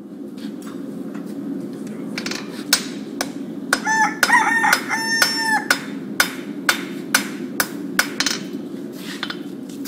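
Hammer blows on hot iron at the anvil, about two strikes a second, over a steady low roar. A rooster crows twice in the middle.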